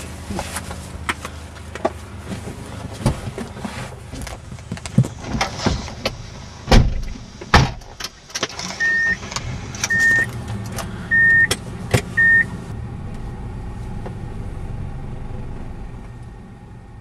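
Handling noises inside a parked car: rustling, clicks and knocks, then two heavy thuds like a car door being shut about seven seconds in. Four short electronic beeps about a second apart follow, then a steady hum that fades away.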